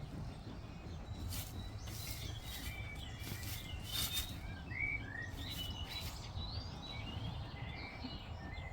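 Small songbirds chirping and whistling in short, rising and falling notes, with a few brief scratchy rustles in the first half over a steady low rumble.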